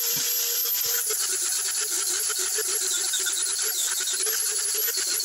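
Angle grinder with an abrasive disc running at full speed with a steady high whine, grinding a small wooden block; from about a second in its pitch wavers as the disc bites into the wood.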